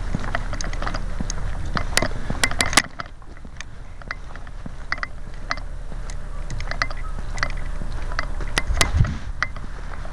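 A body-worn camera moves through dry grass, with rustling, handling noise and a low rumble on the microphone that drops off about three seconds in. Scattered sharp clicks and knocks come throughout, with a short cluster near the end.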